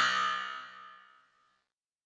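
The ringing tail of a basketball scoreboard buzzer blast, fading out over about a second just after the buzz cuts off.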